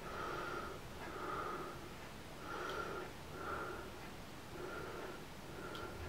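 A person breathing heavily through the nose close to the microphone, slow and steady, with in-breaths and out-breaths alternating about once a second.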